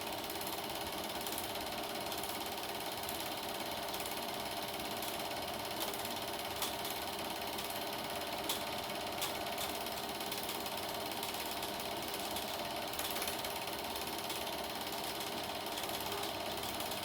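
Super 8 film projector running: a steady, fast mechanical clatter, with a few faint clicks.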